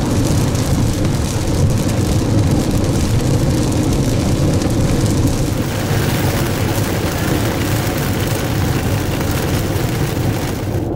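Steady road noise inside a car driving on a wet highway: a low drone of engine and tyres with the hiss of tyres on wet pavement.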